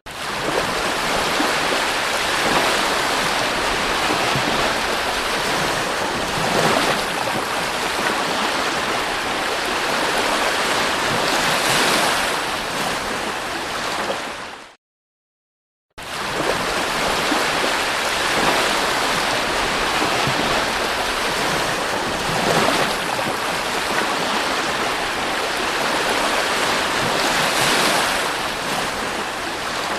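Sea surf washing onto a beach: a steady rush with a swell every few seconds as waves break. It drops out for about a second near the middle, then resumes.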